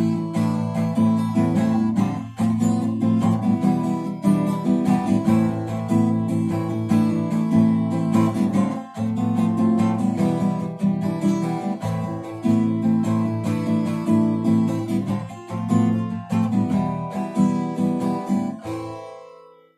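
Acoustic guitar strumming chords in the song's instrumental outro, fading out near the end.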